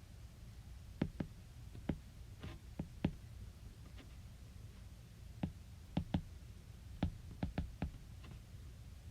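Irregular light clicks and taps, about fifteen, some in quick pairs, over a low steady hum.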